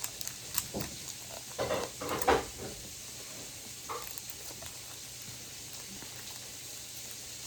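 Pokémon trading cards handled in the hand: a few short brushing, rustling sounds as cards slide against each other, the loudest about two seconds in.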